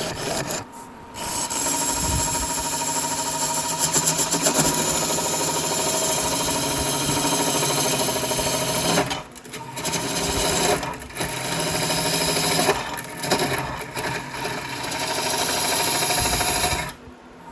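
Wood lathe running while a turning tool cuts a spinning hickory blank, a rapid rattling chatter, with several short breaks as the tool leaves the wood. The turner is struggling to make clean cuts on the spindle-oriented blank. The cutting stops about a second before the end.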